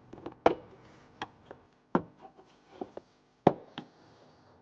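A handful of sharp, irregular clicks and knocks as a flathead screwdriver works at a taillight's push pin, which is still tight.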